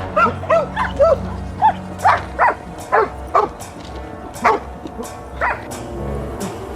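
A dog barking and yipping in short, high calls, a quick run of them and then two more spaced about a second apart, over background music.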